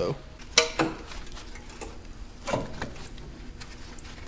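Hands handling parts on a riding mower's engine, with no engine running: a couple of sharp clicks in the first second and a short clatter of knocks about two and a half seconds in.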